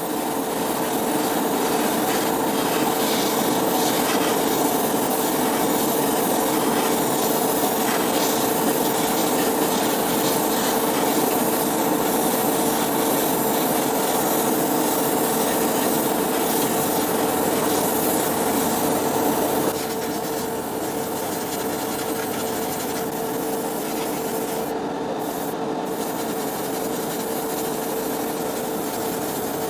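Steady abrasive rubbing over a constant hum, as of a small tool sanding or grinding. It drops a little in level about twenty seconds in.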